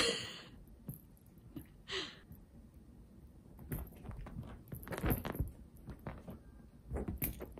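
A domestic cat scrambling and pouncing on a fabric sofa after a wand toy: soft, irregular thumps and rustles on the cushion, with two brief swishes near the start and about two seconds in.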